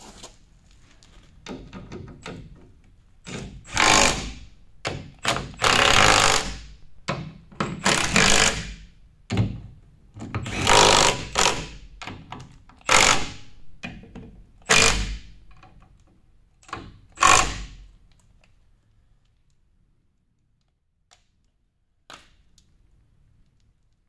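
Cordless impact wrench hammering in a dozen or so short bursts as it runs bolts on the sweeper's brush mount; the bursts stop about three-quarters of the way through.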